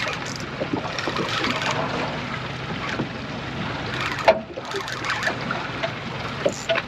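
Steady wind and motor noise on a fishing boat at sea, with faint voices underneath and a sharp knock about four seconds in.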